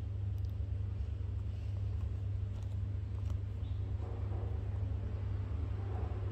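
A steady low hum, with a few faint clicks and soft rustling over it.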